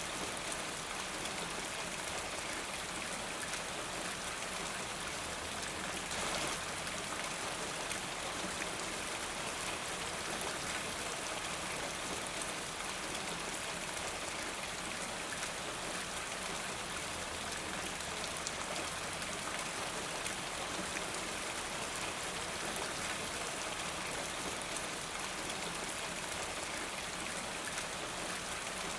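Steady rain falling, an even hiss of many drops, with a brief slightly louder swell about six seconds in.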